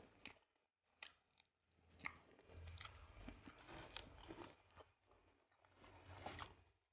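Close-miked chewing of a mouthful of rice and grilled fish, with wet mouth noises and a few sharp, crunchy clicks.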